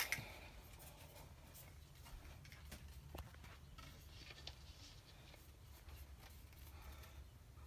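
Near silence: a faint steady low hum with scattered light clicks, after a single knock right at the start.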